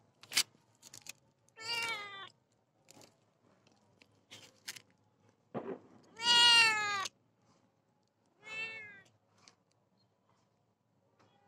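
Domestic cat meowing three times close to the microphone; the middle meow is the loudest and longest, about a second, and each falls slightly in pitch. A few short, sharp clicks come between the meows.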